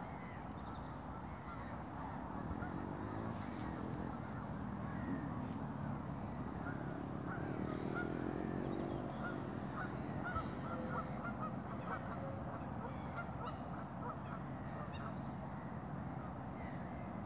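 A flock of geese honking as they fly over, many short calls overlapping, thickest near the middle and thinning toward the end, over a steady low rumble.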